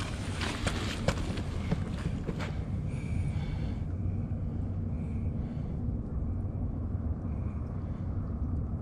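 Steady low wind rumble on the microphone, with a run of small clicks and taps in the first two and a half seconds as fishing tackle is handled.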